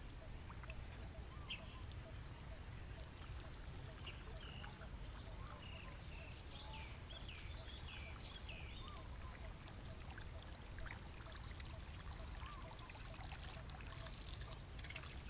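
Outdoor ambience of birds chirping and calling faintly, with a cluster of short calls a few seconds in, over a steady low rumble. A short burst of noise comes near the end.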